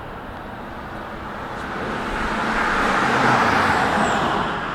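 Car driving past: a rush of road noise that builds, peaks about three seconds in, and eases off near the end.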